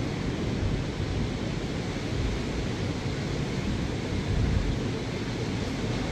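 Steady storm wind and ocean surf: an even rushing noise, heaviest in the low end, with no distinct strikes.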